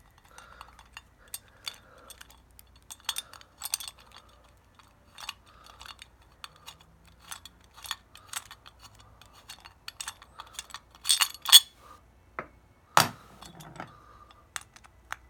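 Metal deadbolt hardware being handled and taken apart: small parts clinking and clicking against each other, a louder clatter about eleven seconds in and a single sharp knock shortly after.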